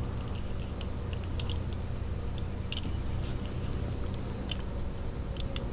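Faint, scattered light clicks and taps from handling a small 1/64-scale diecast toy car and its tiny parts, over a steady low room hum.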